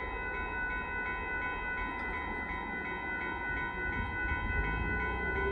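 Amtrak Texas Eagle passenger train rolling past with a steady low rumble, over a grade-crossing bell ringing in a regular repeating pattern. A low hum comes in near the end.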